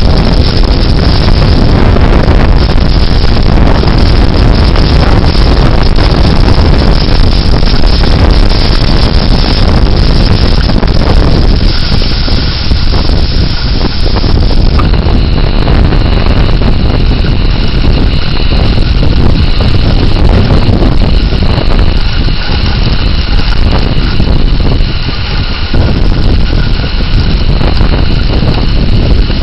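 Damaging thunderstorm winds gusting hard against the microphone, a loud continuous rush and buffeting. About halfway through the wind eases a little and a few faint steady tones come in under it.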